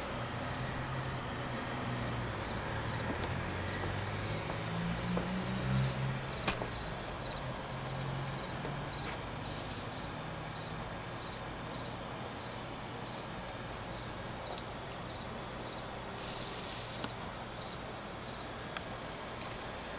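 Outdoor evening background: a low hum that shifts in pitch over the first several seconds, then an insect chirping evenly, about twice a second.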